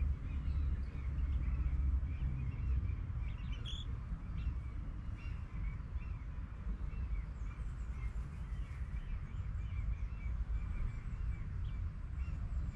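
Birds chirping in many short, repeated calls over a steady low rumble.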